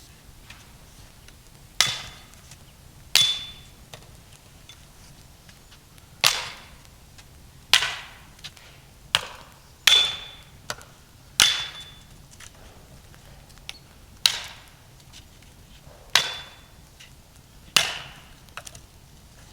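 A metal tool striking wood in a series of about ten sharp blows, one every second or two, several with a brief metallic ring.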